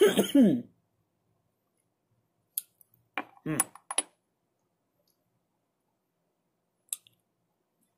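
A short breathy voice sound at the very start, then a few sharp clicks and clinks of small hard objects being handled, about two and a half to four seconds in, and one more click near the end.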